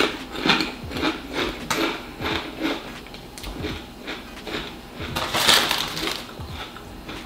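Walkers cheese and onion potato crisps crunching as they are chewed, in irregular crunches several a second. About five seconds in there is a louder rustle, likely the crisp packet being picked up.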